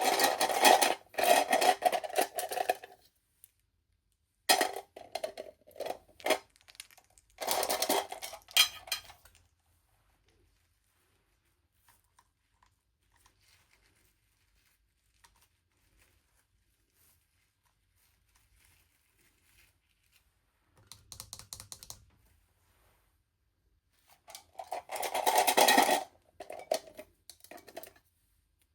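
Small plastic toy packaging being handled and opened, crinkling and clicking rapidly in several bursts with quiet pauses between them.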